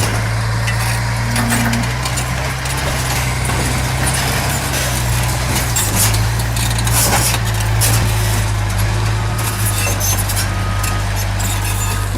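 Heavy earthmoving machine's engine running steadily with a deep hum, with a few short knocks and scrapes over it.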